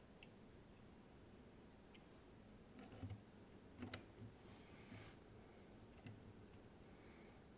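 Faint clicks and small metal taps of a disc detainer pick and tube tensioner being handled at a padlock's keyway, a few scattered through a near-silent stretch and clustered around the middle.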